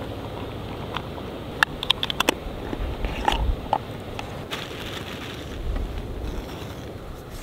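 Wind buffeting the microphone in a steady low rumble, with a quick run of small clicks and clinks about two seconds in and a few lighter knocks after, from hands handling a jar, its lid and food bags beside a camp stove.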